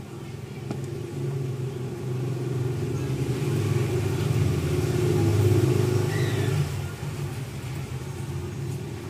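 A motor vehicle's engine runs, growing louder toward the middle and dropping off sharply about two-thirds of the way through.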